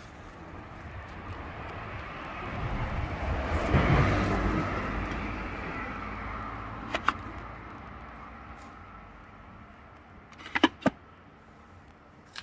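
A car passing by, building to its loudest about four seconds in and then fading away. There is a sharp click partway through and a quick cluster of sharp clicks near the end.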